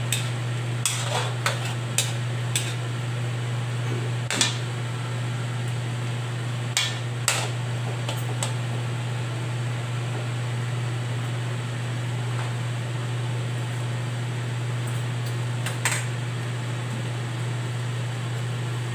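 Metal spatula knocking and scraping against a metal wok as chicken simmering in sauce is stirred: a few sharp clinks in the first half and one more near the end, over a steady low hum.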